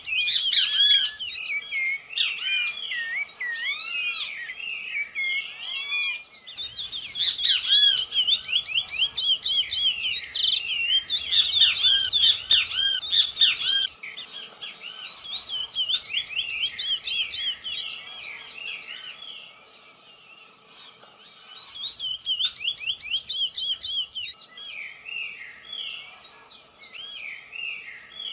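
Dawn chorus of Atlantic Forest birds: many birds singing at once in overlapping chirps, trills and whistles, thinning out briefly about two-thirds of the way through.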